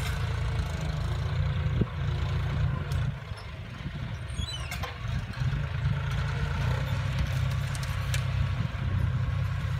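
John Deere 5045D tractor's three-cylinder diesel engine running steadily under load as it pulls a disc plough through weedy ground. The engine sound dips for a couple of seconds in the middle, then comes back up.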